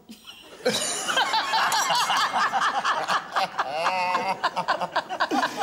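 Two men and a woman laughing hard together, breaking out about a second in.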